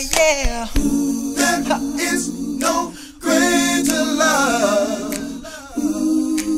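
A cappella vocal music: backing voices hold steady chords while a lead voice slides and wavers above them, easing off briefly about three seconds in.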